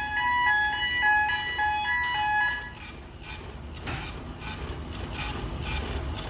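Ship's machinery alarm sounding a two-tone alternating beep during blackout recovery, cutting off a little under halfway through. Under it are a steady low drone of running generator machinery and a regular ticking about twice a second.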